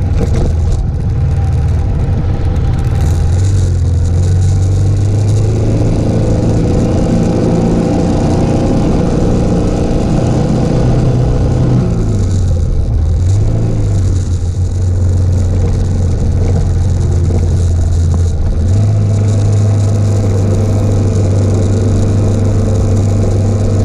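Suzuki DR650's single-cylinder four-stroke engine running steadily at cruising revs under a rush of wind and road noise. The engine note dips about halfway through, climbs back, and steps up a few seconds later.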